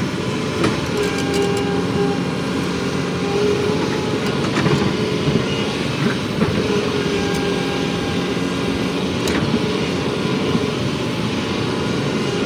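Excavator diesel engine running steadily, with a few sharp metallic clanks scattered through.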